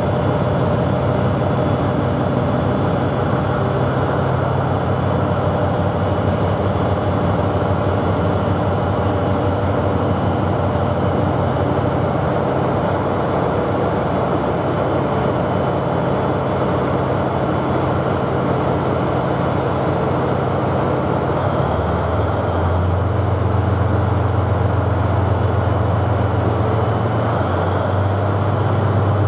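Diesel locomotive of the Seven Stars in Kyushu train idling at the platform with a steady low engine hum. Its engine note changes and grows a little louder about 22 seconds in.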